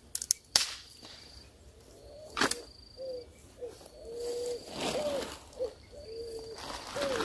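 Insects giving a steady high trill that comes and goes, with short low hooting calls repeating about once a second from about three seconds in. A few sharp clicks in the first three seconds.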